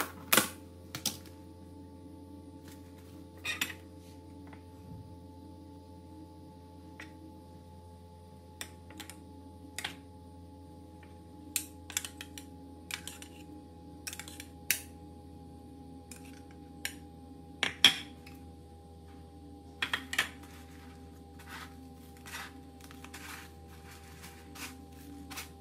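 Scattered clinks and taps of a metal spoon and fork against a ceramic bowl and a plastic tub while balls are dipped in beaten egg and rolled in breadcrumbs, over a steady background hum.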